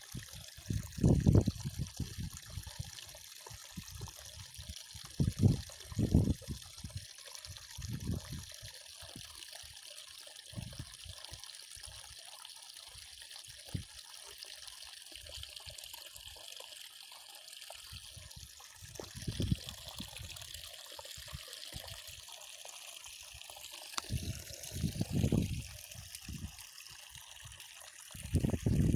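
Water trickling steadily, with short low thumps now and then.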